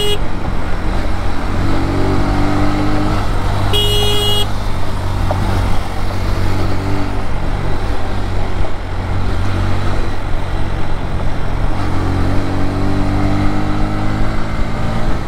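Riding on a Bajaj Pulsar NS125 motorcycle: steady engine and wind rumble, with the engine note rising twice as it accelerates. A short horn beep comes about four seconds in.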